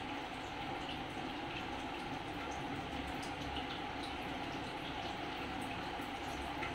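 Steady rushing noise with a faint constant hum, unchanging throughout, with a few faint ticks.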